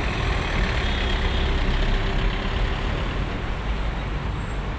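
Steady road traffic: cars passing on a multi-lane road, a continuous wash of engine and tyre noise that eases off slightly near the end.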